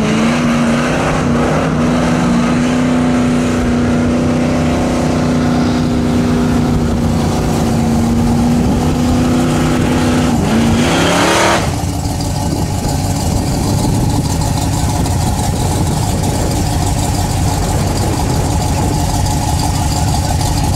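The GMC C1500's ZZ502 big-block V8 held at steady high revs during a burnout, its revs climbing sharply about eleven seconds in. After that a second V8 drag car idles close by with a deep, steady rumble.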